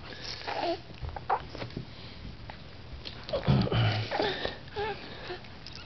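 A baby's snuffly breathing and small grunts close to the microphone. About three and a half seconds in there is a louder bump and rustle as a plastic toy is handled right next to the microphone.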